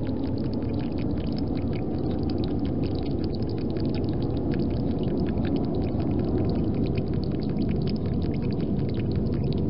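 European hedgehog lapping water from a bowl: a rapid, irregular run of small wet clicks from its tongue, over a steady low rumble of background noise.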